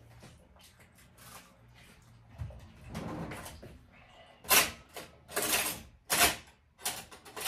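Handling noises at a kitchen counter: a soft knock, then, from about halfway, a quick run of short sharp knocks and rustles as jars and packages are moved about.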